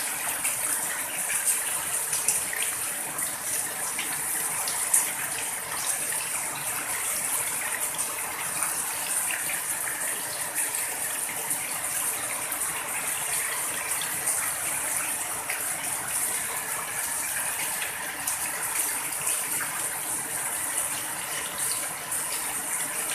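Heavy rain on a house roof, with streams of runoff pouring off the roof edge and splashing below: a steady, dense hiss of drops with one sharper tap about five seconds in.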